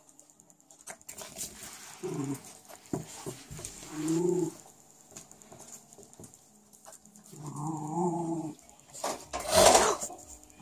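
West Highland white terriers vocalising as they meet: short low growly grumbles, three times, the last one longer, over light clicks of claws on a tile floor. A brief loud noisy burst near the end.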